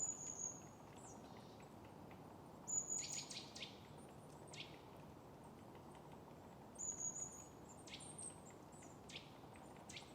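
Small songbird singing faintly: high, thin phrases of short notes and quick falling sweeps, heard three times a few seconds apart, over a faint steady hiss.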